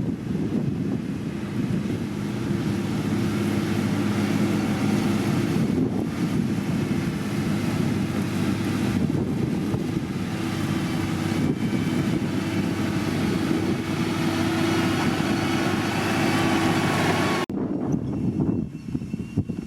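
Diesel engine of heavy road-construction machinery running steadily under load. It cuts off abruptly near the end, leaving a quieter rumble.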